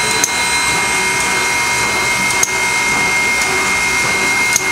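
Southern Railway steam locomotive standing and blowing off steam: a steady loud hiss mixed with an even mechanical whine, broken by three short sharp clicks about two seconds apart.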